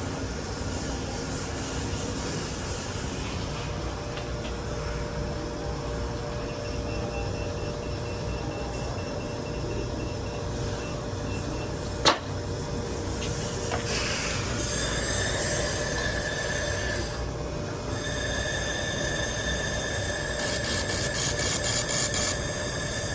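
IPG LightWELD XR handheld laser welder at work: a steady machine hum, a single click about twelve seconds in, then a high whine about fifteen seconds in that stops briefly and comes back. Near the end the whine pulses about four times a second.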